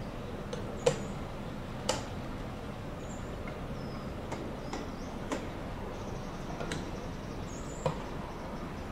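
Railway coaches rolling slowly during shunting, giving a handful of sharp, irregular clicks and knocks from wheels and running gear over a low steady rumble. The loudest knocks come about one and two seconds in, with others later.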